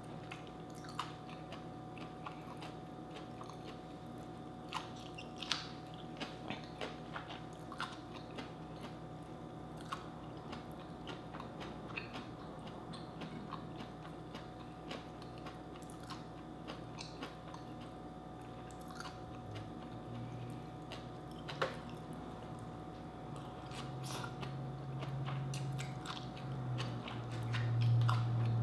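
Close-up eating sounds: a person chewing and crunching cooked vegetables (sweet potato leaves, long green beans, okra), with many small wet mouth clicks. A low hum swells near the end.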